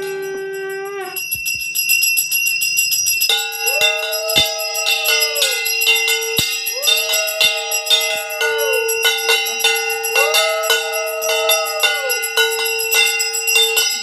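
Brass puja hand bell rung fast and continuously during aarti. Under it a steady pitched drone sounds from about three seconds in, with a rising-and-falling tone coming back about every three and a half seconds.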